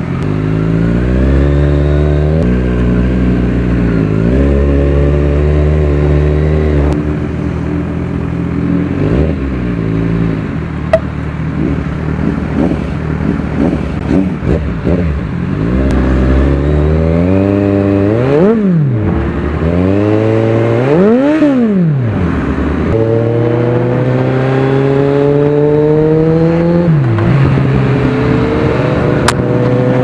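Kawasaki Z1000R's inline-four engine through its KalKal exhaust pipes, heard from the bike: accelerating through the gears, the pitch climbing and then dropping at each upshift, with quick sharp revs up and down in the middle stretch. A single sharp pop stands out about eleven seconds in.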